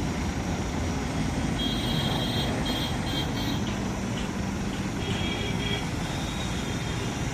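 Steady low rumble of a running vehicle engine, with brief high-pitched squeals about two seconds in and again about five seconds in.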